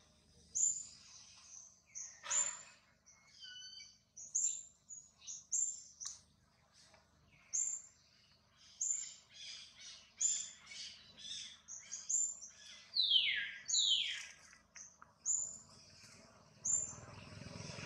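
Birds chirping: a run of short, high calls repeating every second or so, with two quick falling whistles about thirteen seconds in.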